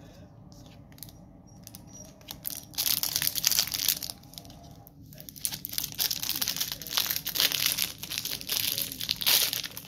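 Plastic trading-card pack wrapper being torn open and crinkled by hand. After a few quiet seconds of faint clicks, loud crinkling starts about three seconds in, pauses briefly around five seconds, and carries on until near the end.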